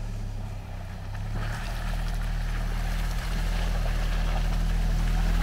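Quad bike (ATV) engine running steadily as the machine drives across bog toward the listener, growing louder throughout.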